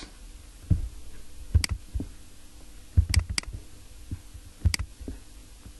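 Computer mouse clicking: about seven separate clicks, with a quick pair about three seconds in, over faint room hiss.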